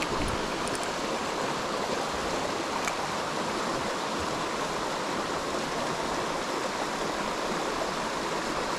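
Mountain stream rushing steadily, with a couple of faint clicks in the first three seconds.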